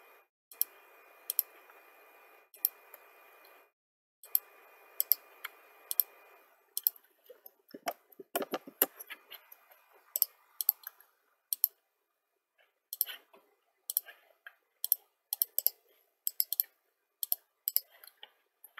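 Computer mouse and keyboard clicking: irregular sharp clicks, bunched into quick runs in places, over a faint steady hiss that stops about six seconds in.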